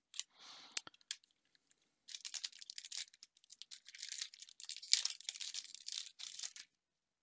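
The wrapper of a Magic: The Gathering set booster pack being torn open and crinkled: a few light clicks, then a dense run of crackling from about two seconds in that stops shortly before the end.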